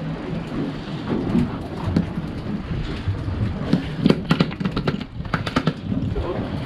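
Wind buffeting the microphone over a steady low rumble on deck, with a quick run of sharp taps and knocks about four to six seconds in.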